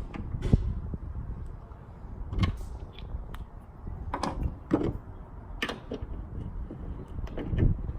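Scattered clicks and light knocks of a hand tool and small metal parts being handled as the tailgate cable mount is screwed back on with its lock washer, over a low rumble.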